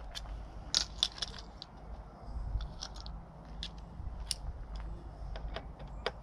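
Irregular light metallic clicks and taps of a small hand tool on fasteners and fittings under a motorcycle seat. The sharpest clicks come in a cluster about a second in, with a few more later.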